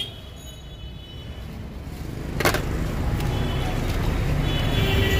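Street background noise: a low traffic rumble that grows louder a little over two seconds in, with a single sharp knock about two and a half seconds in.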